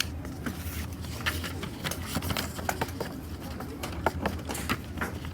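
Typing on a mechanical keyboard with red linear switches: irregular keystroke clicks over a steady low hum.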